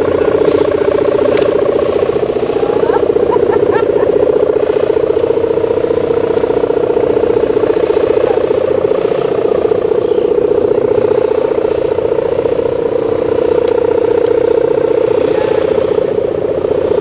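Sendaren hummer on a large flying kite, its tuned mica strip buzzing in the wind: a steady, fast-fluttering drone of the 'gerr' type.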